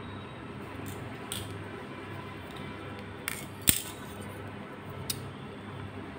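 A shrink-wrapped cardboard box being handled: a few light crinkles and taps, with one sharp knock about three and a half seconds in, over steady low background noise.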